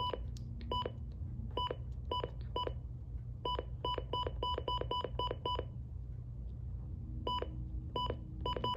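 Midland WR300 weather radio's short key-press beeps as its menu buttons are pressed: scattered single beeps, then a quick run of about ten in a row around the middle, and another cluster near the end.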